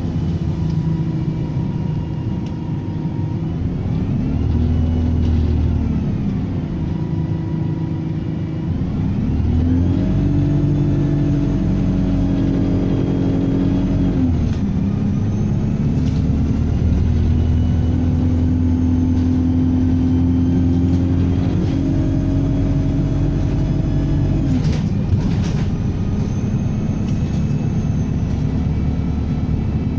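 Diesel bus engine pulling away and accelerating several times, its pitch rising and settling through the gear changes, with a thin high turbocharger whistle rising and falling above it. A few sharp clicks come near the end.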